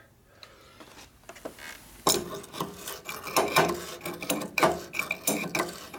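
Adjustable wrench turning a lathe's levelling bolt on its foot pad as the bed is levelled: irregular metallic scraping and clicking with a few short squeaks, starting about two seconds in.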